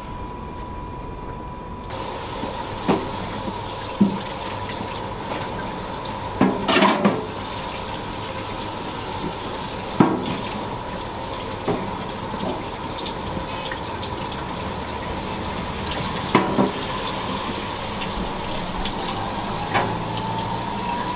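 Water running from a kitchen tap into a sink, turned on about two seconds in and then flowing steadily, with scattered knocks and clatter of dishes or utensils.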